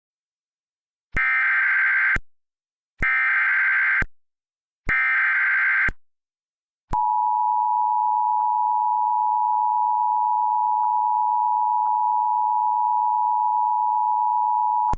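Emergency Alert System signal: three SAME header data bursts, each a harsh digital screech of about a second, followed from about seven seconds in by the steady two-tone EAS attention signal (853 and 960 Hz together). The signal announces that an emergency message, here a severe thunderstorm warning, is about to be read.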